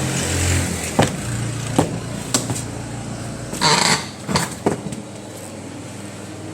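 Several sharp knocks and clicks, roughly a second apart, with a short rustling scrape just under four seconds in and a couple more quick clicks after it, over a low hum that fades after the first second: handling noise of things being moved.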